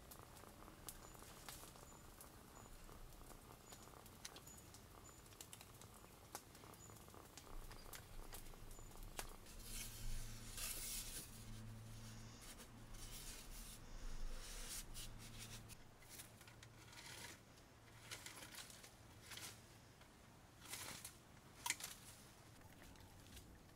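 Faint rustling and scattered light clicks and taps from small sticks and a bamboo pole being handled, against a quiet background.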